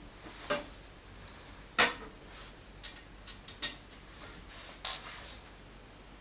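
Scattered sharp clicks and taps of hardware being handled while fitting an SSD into a desktop PC: about seven in all, the loudest about two and three and a half seconds in.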